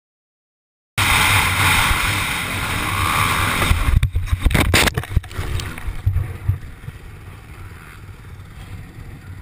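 Dirt bike running at speed with heavy wind rush on the onboard camera, then a crash about three seconds in: a cluster of hard impacts as the bike goes down, after which only a quieter, uneven rumble remains.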